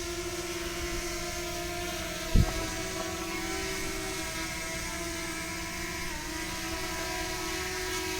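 DJI Mini 2 drone's propellers and motors in flight, a steady whirring hum with a held pitch and a single short knock about two seconds in. The owner suspects the extra motor sound comes from a broken propeller glued back together.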